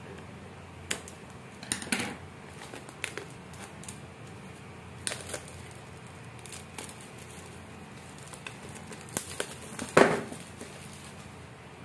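Scissors snipping the plastic shrink-wrap on an AirPods Pro box, then the thin film crackling as it is peeled off and crinkled by hand, in short scattered bursts. The loudest crinkle comes near the end as the film is crumpled into a ball.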